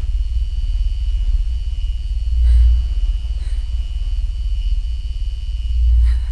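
Low, rumbling horror-film drone that swells and fades about every three and a half seconds, with a thin, steady high tone held over it.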